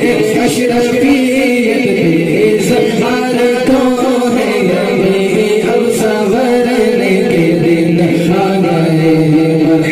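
A naat, an Urdu devotional hymn in praise of the Prophet, chanted by male voices without instruments, in long held, melismatic notes.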